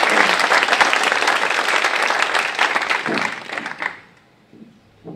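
Audience applauding, the clapping tailing off and stopping about four seconds in.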